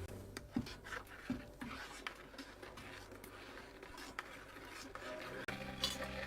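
Scattered soft clicks, taps and rubbing of small objects being handled, with a low hum that fades at the start and returns a little after five seconds in.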